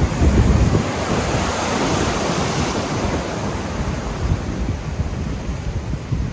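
Large ocean waves breaking and surf rushing, with wind buffeting the microphone. A brighter rushing hiss swells about two seconds in as a wave washes through.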